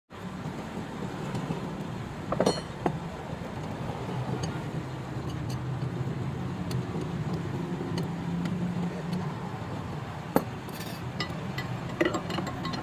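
Metal parts clinking and tapping now and then over a steady low machine hum, with a sharp clink about ten seconds in.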